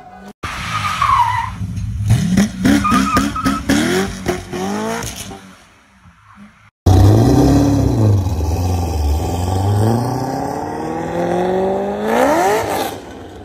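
Chevrolet Corvette V8 revving in repeated rising bursts while its tyres squeal and skid through a drift. About seven seconds in, a Corvette V8 starts suddenly and accelerates hard, its pitch climbing steadily, then drops away near the end.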